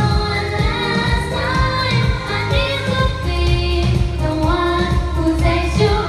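A girl singing karaoke into a microphone over a pop backing track with a steady bass beat.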